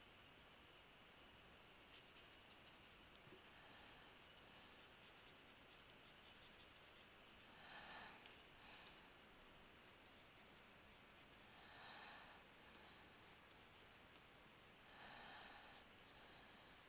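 Near silence: faint room tone with three soft swishes, each about a second long, spaced three to four seconds apart.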